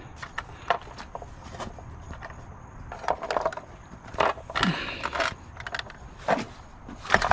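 Scattered knocks, clicks and rattles of a small plastic-and-metal gadget being handled and set down, with a few louder clunks about three, four and a half, and six seconds in.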